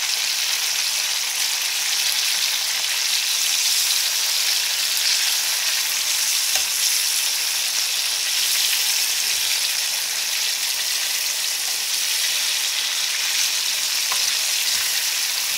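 Stuffed green chillies sizzling steadily as they fry in hot oil in a karahi, with a couple of faint clicks from the utensil in the pan.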